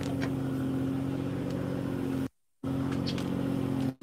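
Fishing boat's engine running with a steady low drone, with a few faint clicks over it; the sound drops out completely for a moment a little past halfway.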